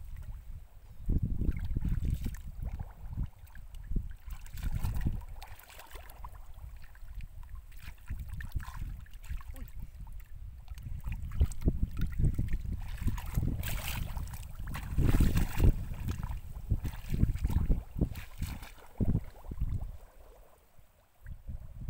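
Bare feet and hands splashing and sloshing through shallow water in uneven bursts.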